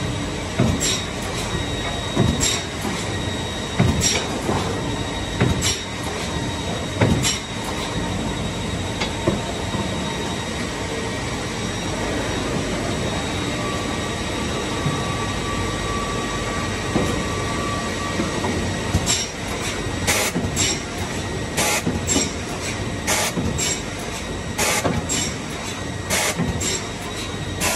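Grecon Dimter OptiCut S 90 XL optimizing crosscut saw running with timber feeding through: a steady mechanical din with sharp clacks about every second and a half, a thin steady tone for a few seconds midway, and a quicker run of clacks in the last third.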